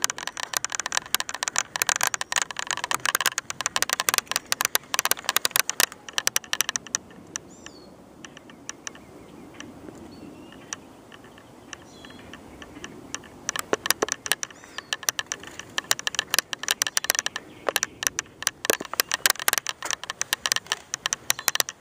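Rapid, irregular clicking and rattling handling noise from a camera being moved around, stopping for a quieter stretch of several seconds in the middle, then starting again.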